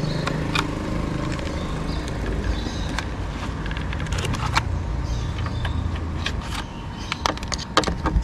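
Scattered clicks and light rattles of screwdriver bits being handled in a plastic bit-set case and a Torx bit being fitted to a screw, with a few quick clicks together near the end, over a steady low rumble.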